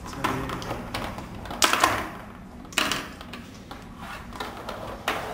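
Plastic ball-and-stick molecular model pieces clicking and clattering as they are pulled apart and refitted, in a few short bursts, the loudest a little under two seconds in.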